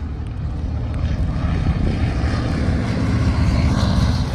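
Propeller aircraft engine running, a loud low drone with a rapid pulsing that grows steadily louder.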